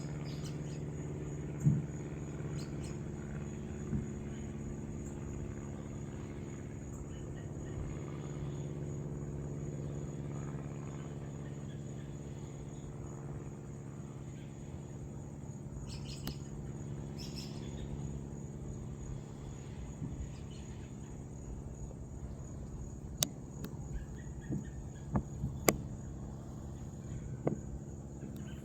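Steady outdoor ambience: a continuous high-pitched insect trill over a low steady hum, with a few sharp clicks, most of them near the end.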